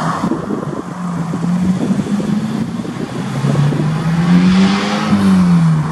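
Diesel-electric locomotive engine running as the locomotive rolls slowly across a level crossing. The engine note climbs through the middle and drops away near the end.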